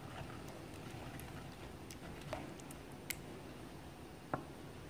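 Faint wet squishing of thick peanut sauce being stirred and worked with a pestle (ulekan) in an earthenware mortar, with a few faint clicks of the pestle.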